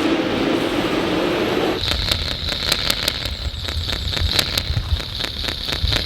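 Small electric motors of radio-controlled construction models running. About two seconds in the sound changes suddenly to a steady high whine with many sharp clicks and a low rumble.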